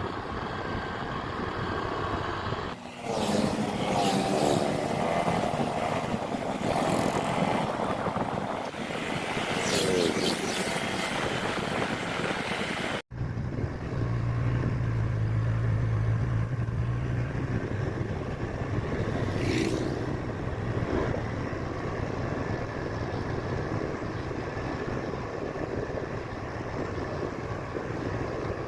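A Honda Click 125i scooter being ridden, its engine mixed with wind noise. The pitch wavers up and down in the first half, drops out for an instant near the middle, then runs steadier.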